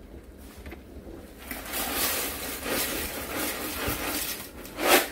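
Dry egg noodles poured from a bag into a pot of boiling water: a rushing, rustling sound that lasts about three seconds, then a short sharp crackle near the end.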